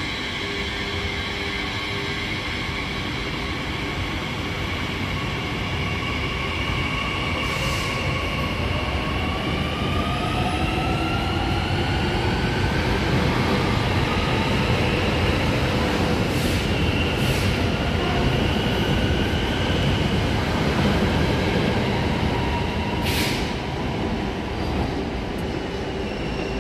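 Double-deck RER A electric multiple unit pulling away from the platform: its traction motors whine in several tones that rise in pitch as it accelerates, over a heavy rumble of wheels on rail. A few short hisses cut through.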